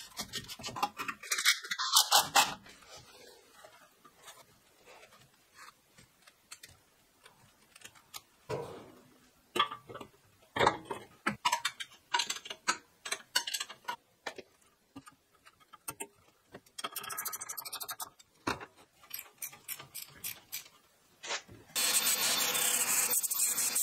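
Scattered knocks and clatter of metal parts being handled and fitted. About 22 seconds in, a cordless angle grinder starts grinding steel tube, a steady loud grinding that is the loudest sound.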